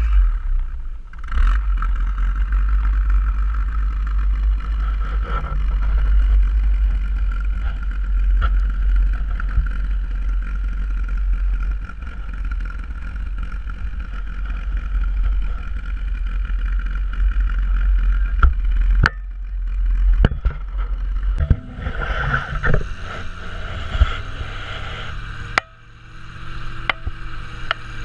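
1971 Thiokol snowcat driving over snow, its engine and tracks running with a steady low rumble and a steady higher whine. The sound changes abruptly twice in the second half, and more clicks and knocks come through near the end.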